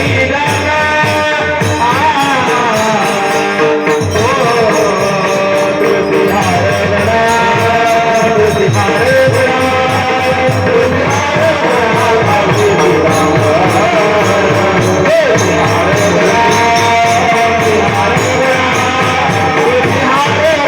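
Marathi devotional bhajan (panchapadi) singing: a voice carrying a wavering, ornamented melody over a steady fast beat of jingling hand percussion and drum.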